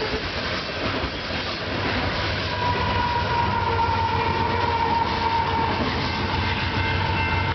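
Loaded coal hopper cars rolling past with wheel clatter. About two and a half seconds in, a Union Pacific diesel locomotive at the end of the train passes close: its engine rumbles and a steady whine sets in, falling slowly in pitch as it moves away.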